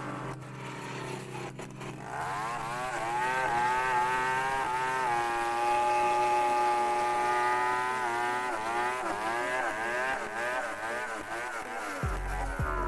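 Chainsaw engine running at high revs. Its pitch climbs about two seconds in, holds steady for a few seconds, then wavers up and down.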